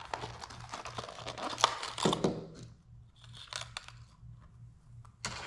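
Crinkling and crackling of a crankbait's packaging being opened by hand. The crackling is dense for about the first two seconds, then thins to a few scattered clicks, with one sharp click near the end.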